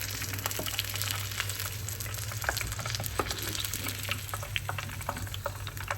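Gram-flour-battered onion ring deep-frying in hot oil, sizzling steadily with frequent small crackles and pops, over a low steady hum.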